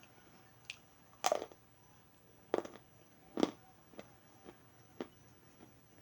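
A series of crisp crunches of something brittle being crushed or bitten, three loud ones near the middle and smaller crackles after.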